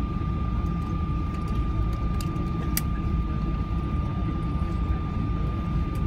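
Cabin noise inside a Boeing 777-300 taxiing after landing: a steady low rumble with a thin steady whine over it, and one sharp click about three seconds in.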